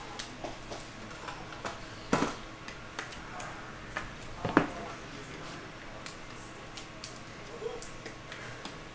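Trading cards and plastic card holders being handled on a table: light scattered clicks, taps and rustles, with two louder knocks about two seconds and four and a half seconds in.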